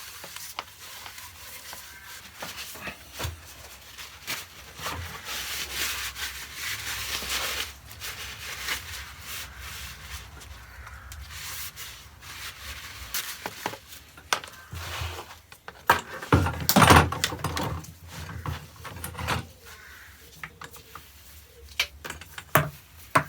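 Cloth wiping and rubbing over the metal detector's plastic parts in irregular strokes, with knocks and clatter of parts being handled, loudest about two-thirds of the way through.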